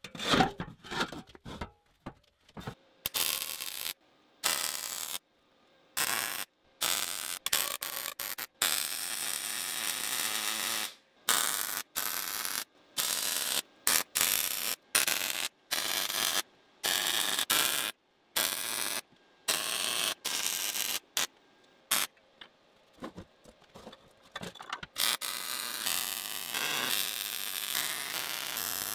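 Arc welding on steel: a harsh, crackling hiss in many short bursts that start and stop abruptly, with longer runs in the second half.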